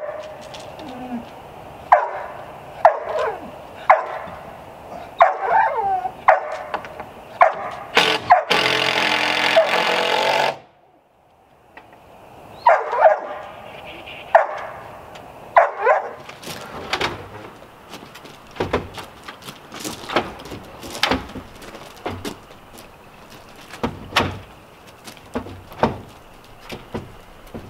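Labrador barking at intervals, single barks and short runs, mostly in the first half. About a third of the way in, a loud two-second burst of noise cuts off sharply, and through the second half come irregular sharp knocks.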